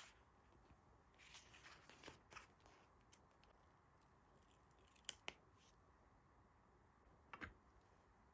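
Faint handling of a paper sticker sheet: soft rustles, two sharp clicks about five seconds in, and a short scrape near the end as a sticker is peeled off.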